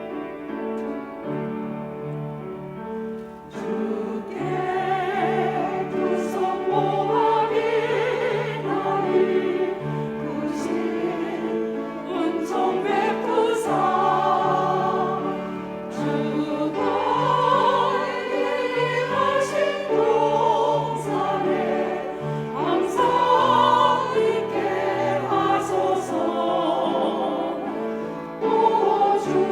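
Church choir singing a hymn in parts with instrumental accompaniment; the voices come in about three and a half seconds in, after a short passage of held accompaniment chords.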